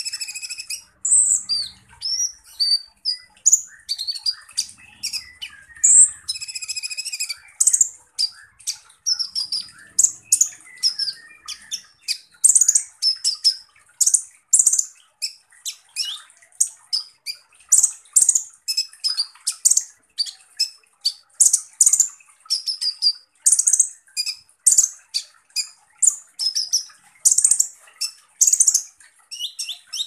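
Purple-throated sunbird (Leptocoma sperata) singing a long, rapid run of sharp, high-pitched notes: the harsh 'shots' of its song. Two longer buzzy trills come in the first eight seconds, then quick clipped notes follow one after another.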